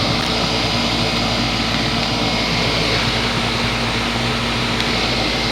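Heat pump outdoor condensing unit running steadily in cooling mode: the whir of the condenser fan over the steady hum of the compressor.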